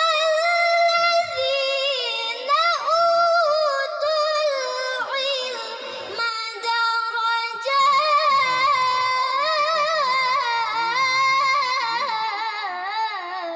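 A young girl's voice reciting the Quran in melodic tilawah style: long, high, ornamented phrases with wavering, trilled pitch, a brief break about halfway, then a second sustained phrase.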